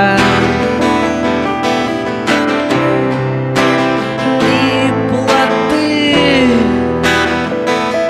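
A band's song led by guitar, playing steadily.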